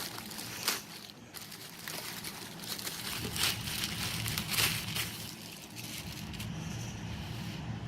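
Packaging crinkling and rustling as a TV wall mount is pulled out of its box, with a few louder rustles.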